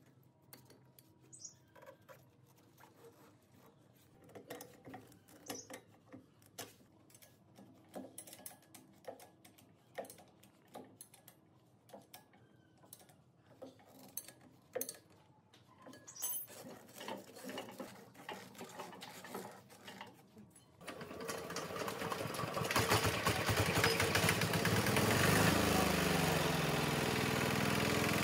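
Scattered clicks and light taps of hand work, then, about twenty seconds in, a restored small diesel engine starts suddenly and runs, its speed climbing before it settles into a steady run.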